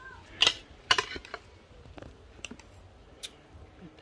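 A fork clicking and clinking against a dinner plate. There are two sharp strikes about half a second and a second in, then a few lighter ticks.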